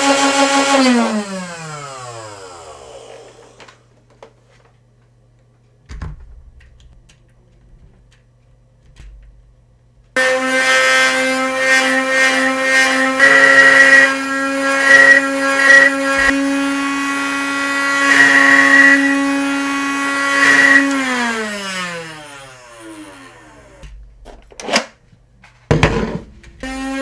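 Nerf Rival Nemesis blaster's flywheel motors, powered by the Nerf Rival rechargeable battery pack. A steady electric whine winds down in pitch over about two seconds, and after a pause the motors spin up abruptly, whine steadily for about ten seconds with several louder spikes, and wind down again. Near the end come a few short revs.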